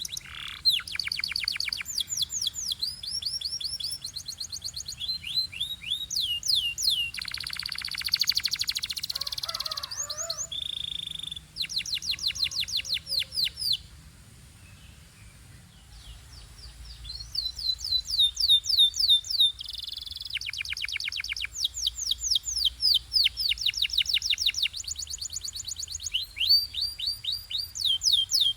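Domestic canary singing: fast trills of rapidly repeated, quick high sweeping notes, a tour of one note type after another with short held notes and rolls between. The song stops briefly about halfway through, then picks up again.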